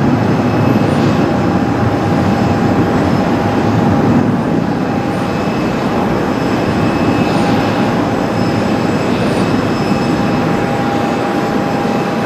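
Airbus A320 jet engines at takeoff-climb power as the airliner climbs away: a loud, steady rumble with a thin steady whine above it.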